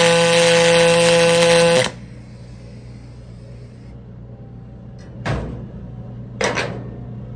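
MIG welding arc from an HTP Pro Pulse 220 MTS running 4043 wire on 1/8-inch aluminum: a loud, steady, strongly pitched buzz that cuts off abruptly about two seconds in as the weld ends. A low steady hum remains, with two short knocks near the end.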